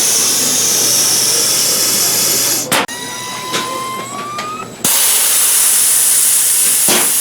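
Loud, steady hiss that starts abruptly, drops away for about two seconds in the middle while a faint rising whistle is heard, then comes back just as loud.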